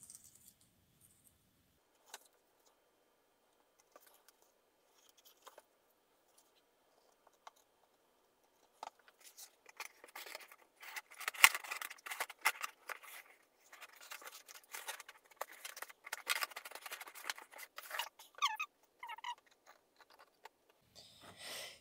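Corrugated cardboard crackling and rustling as hands press glued cardboard pieces into place. It starts as a few faint clicks, turns into dense crackling about nine seconds in, and ends with a couple of short squeaky sounds.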